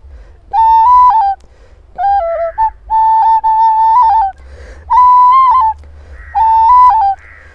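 A flute blown through the nose, playing a tune in five short phrases of clear held notes, each moving among a few nearby pitches, with breath noise in the gaps between phrases.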